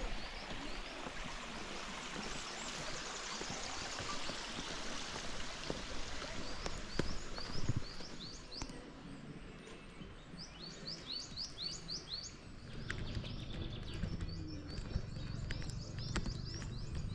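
Small birds calling outdoors: many short, quick chirps repeated over steady background noise. A low rumble joins in about two-thirds of the way through.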